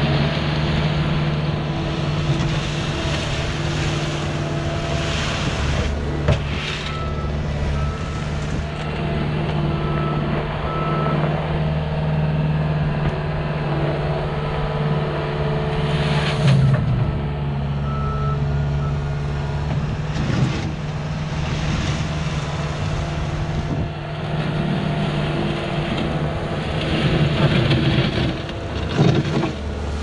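Caterpillar skid steer loader's diesel engine running steadily as it hauls a bucket of stone, with its reversing alarm beeping in two short runs.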